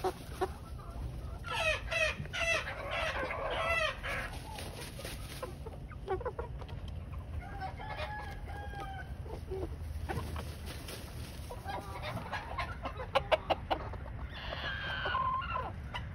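Chickens clucking and calling in several bursts, with a run of rapid repeated calls about two seconds in and a falling call near the end. A few sharp taps come just before it.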